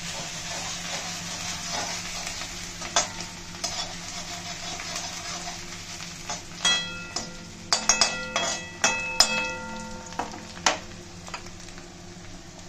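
Chopped green chillies, garlic, ginger and capsicum sizzling in hot oil in a metal kadhai while being stirred with a metal spatula. From about halfway there is a run of sharp clanks as the spatula strikes the pan, each leaving a brief metallic ring.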